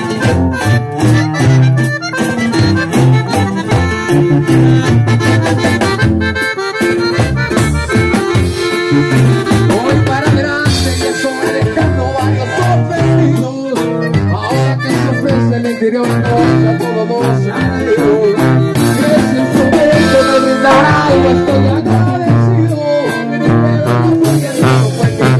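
Live norteño-banda instrumental passage: a piano accordion plays the melody over a pumping sousaphone bass line, guitar and drum kit keeping a steady dance beat.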